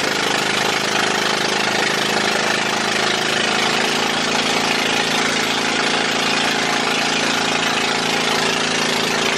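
Boat engine running steadily with an even hum, heard from on board, together with a constant hiss.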